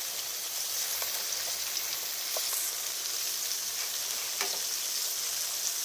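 Cubes of silken tofu frying in oil in a frying pan: a steady sizzle with a few faint crackles.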